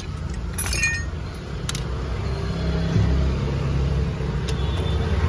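A motor vehicle's engine running nearby, a low rumble that grows louder about halfway through, with a few light metallic clinks of hand tools such as a spanner.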